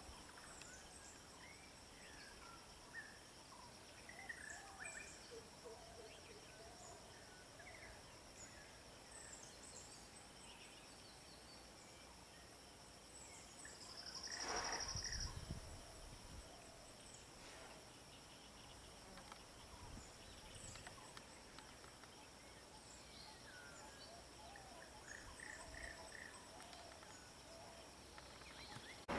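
Faint natural ambience: a steady high insect drone with scattered short bird chirps. About halfway through, a louder buzz rises for about a second and a half.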